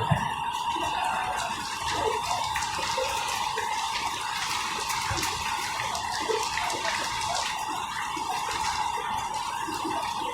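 Running noise heard inside a moving SMRT Alstom Movia R151 train between stations: a steady rush with a constant mid-pitched tone and scattered small clicks and rattles.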